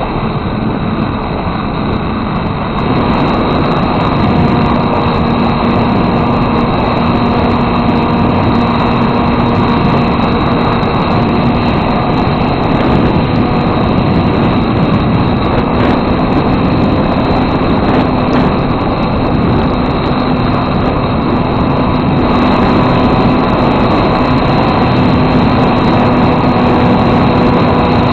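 Small RC foam airplane's motor and propeller buzzing steadily at a few fixed pitches under a heavy rush of wind noise, picked up by a camera mounted on the plane.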